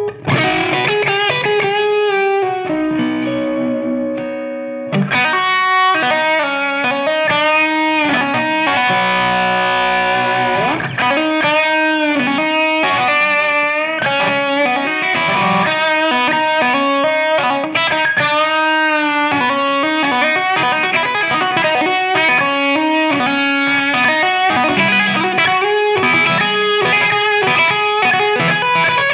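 Fender Stratocaster electric guitar played through a Lovepedal Black Caucus Kalamazoo overdrive into a Brunetti Wizard 6V6 amp's clean channel, giving a mildly overdriven tone. Melodic lead lines with frequent string bends and some held notes.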